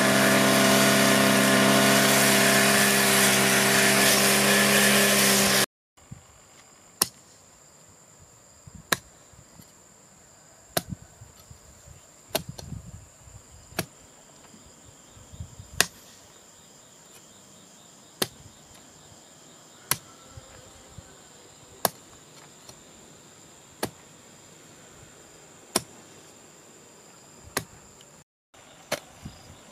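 An engine runs steadily and loudly for about the first six seconds, then stops at a sudden cut. After that, a hoe strikes the soil about once every two seconds, each blow a short sharp hit, over the steady high trill of a cricket.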